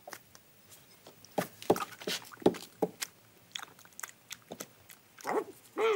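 A cat eating slices of Leberkäse (Bavarian meat loaf) off a plate: irregular short chewing and smacking noises, about one a second.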